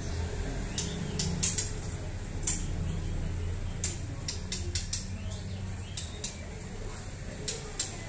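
Scattered light clicks and clinks, about a dozen at uneven intervals, over a low steady hum.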